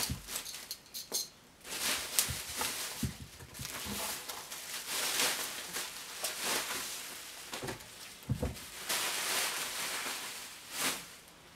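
Bubble wrap and plastic sheeting crinkling and rustling as it is cut open and pulled off, with a few clicks and a couple of low thumps.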